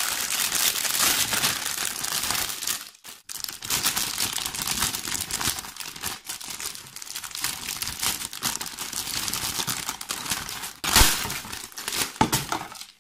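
Thin clear plastic bags crinkling and tearing as plastic model-kit runners are pulled out of them: a continuous dense crackle with a short break about three seconds in and a louder burst near the end.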